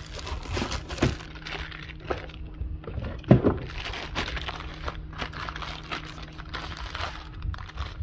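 Plastic packaging and a cardboard box being handled as a part is unpacked: irregular crinkling and rustling with small clicks, and one louder knock a little over three seconds in.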